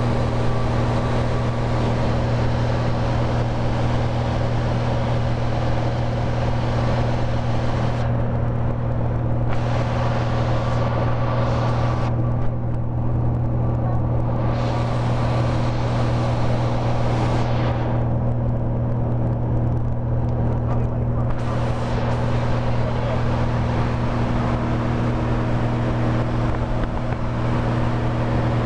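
Cessna 182's single piston engine and propeller droning steadily in cruise flight, heard inside the cabin as a low, even hum with a rushing hiss above it. The hiss thins out briefly three times in the middle.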